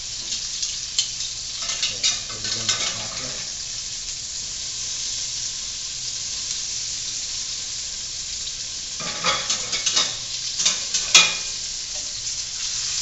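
Chicken pieces sizzling in hot sausage fat in a frying pan, a steady high hiss. Twice, about a second and a half in and again about nine seconds in, a utensil clicks and scrapes against the pan as the pieces are moved or turned.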